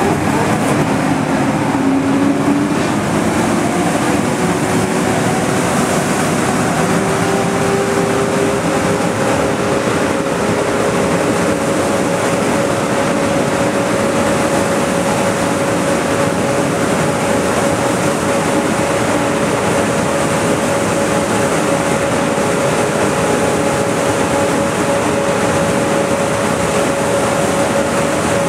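Air-O-Fan air-blast sprayer's tractor-PTO-driven fan blowing air out through a berm blower attachment, with the tractor engine running under it. A loud, steady rush of air with a steady hum over it that rises a little in pitch in the first few seconds.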